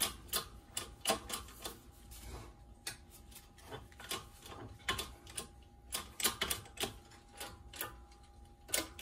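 Irregular sharp metal clicks and taps, a few a second, as steel blocks and a bracket are shifted and set in place on the bed of a hydraulic shop press.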